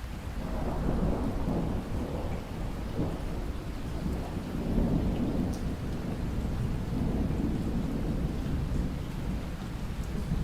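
Steady rain with a long, rolling rumble of thunder that swells about half a second in and keeps surging and fading through to the end.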